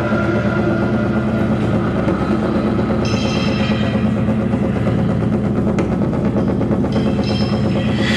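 Loud live band music with a drum kit played hard and fast under a dense wall of amplified instruments.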